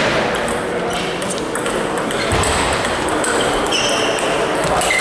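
Table tennis rally: a celluloid ball clicking off the players' paddles and bouncing on the table in quick repeated knocks, with chatter and other games going on in the hall behind.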